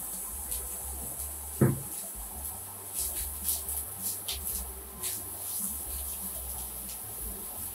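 Diced onion frying in a nonstick pan, with a steady sizzle. About one and a half seconds in there is a single loud knock as the cutting board is put down. A few seconds in, a slotted plastic spatula stirs the onion with short scrapes against the pan.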